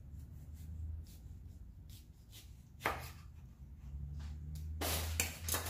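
Chef's knife slicing through a tomato onto a wooden cutting board: a few faint, irregular cuts and taps of the blade on the board, the clearest about three seconds in and several close together near the end.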